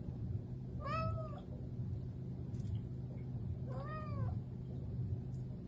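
Long-haired ginger cat meowing twice, each meow short and rising then falling in pitch, over a steady low hum.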